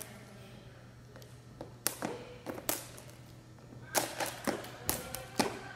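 A thin speed jump rope slapping a hard gym floor in irregular sharp taps: a few about two seconds in, then a quicker run of taps near the end.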